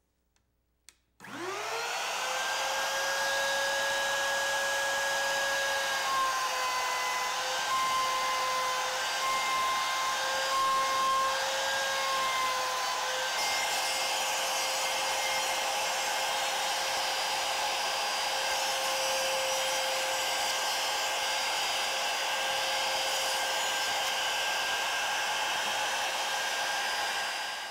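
Router's motor starting about a second in with a rising whine, then running steadily at high speed as the bit cuts through the wooden banjo rim to part it off the faceplate. The whine cuts off suddenly near the end.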